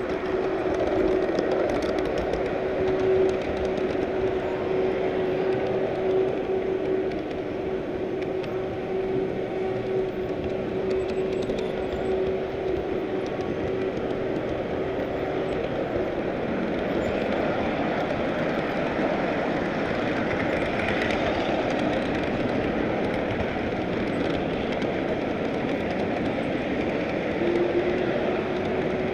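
Large-scale model train rolling along the track, its wheels making a steady running noise close up from a camera riding on the train. A steady hum sounds through about the first half, drops out, and comes back near the end.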